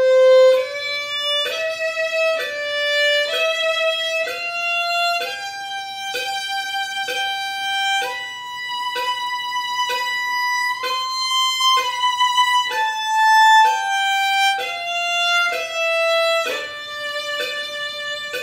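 Solo violin playing a short bowed exercise in second position, single notes starting on the A string and climbing onto the E string, then coming back down. Quicker separate strokes at first and near the end, with longer held notes in the middle.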